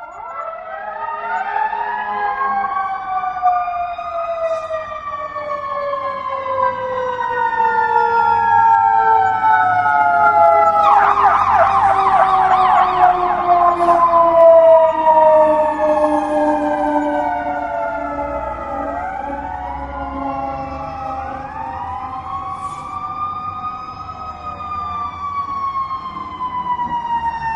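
Police car siren wailing in slow rising and falling sweeps, switching to a rapid warbling yelp for a few seconds about eleven seconds in. It grows louder toward the middle and then fades somewhat, over a low vehicle rumble.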